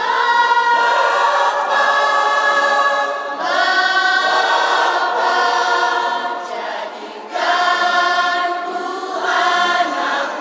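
Mixed church choir of women, men and children singing together, entering loudly at the start and moving through sung phrases that break briefly about three and a half and seven seconds in.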